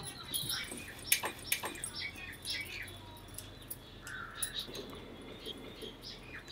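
Small metal spoon clinking lightly against a steel cup as sesame oil is spooned out, a few scattered clinks, with birds chirping in the background.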